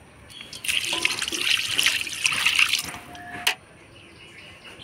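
Water splashing and running as pieces of hilsa fish are rinsed, stopping abruptly about three and a half seconds in.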